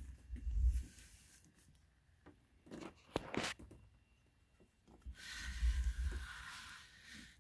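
Rustling and bumping of handling noise on a handheld recording device, with a short rustle about three seconds in and a longer hissing rustle from about five seconds in.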